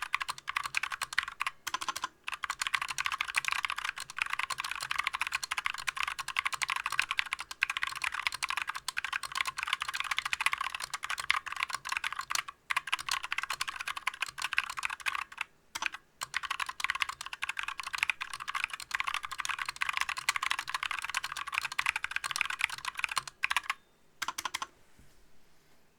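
Fast typing on a GMMK Compact mechanical keyboard with Yok Purple Trash Panda tactile switches, stock, with no lube or stabilizer modifications: a dense, rapid run of key clacks broken by a few brief pauses, stopping near the end.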